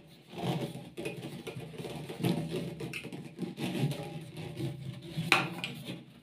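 Corrugated plastic air hose of an HVLP paint sprayer being uncoiled and handled: irregular rustling and light clicking, with one sharper knock about five seconds in.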